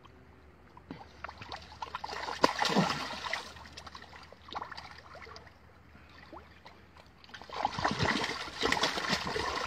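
Water splashing and sloshing as a large fish thrashes half out of the water at the bank, lunging for food held in a hand. The splashing comes in two loud bouts, about two seconds in and again from about seven and a half seconds.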